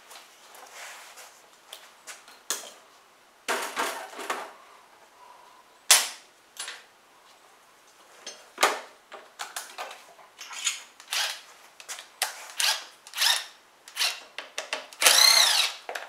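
Tools and parts clicking, knocking and clattering while the engine cover is taken off a lawn mower, with a brief power-driver whir that rises and falls near the end.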